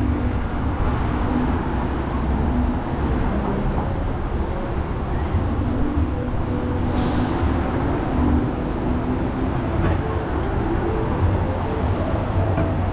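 City street traffic: vehicles running and passing in a steady low rumble, with a short hiss about seven seconds in.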